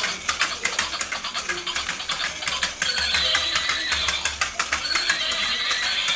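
Battery-powered walking toy horse's plastic gear mechanism clicking and rattling rapidly as its legs step, with no melody playing. A high wavering tone sounds over the clicking twice in the second half.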